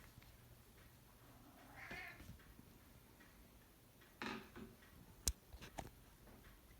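Domestic cat meowing twice, the second call louder, asking to be fed. A sharp click follows, and a smaller one just after.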